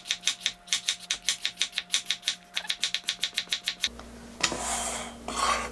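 Kitchen knife slicing a raw bottle gourd on a wooden cutting board in fast, even strokes, about seven a second, stopping near four seconds in. A couple of soft handling sounds follow.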